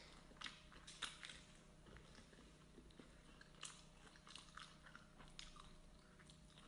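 A person chewing food close to the microphone: soft, scattered crunches and wet mouth clicks at irregular intervals.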